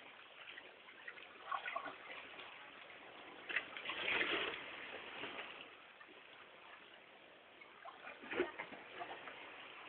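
Sea waves washing and sloshing against the shore, swelling about three and a half seconds in, with a short louder burst near the end.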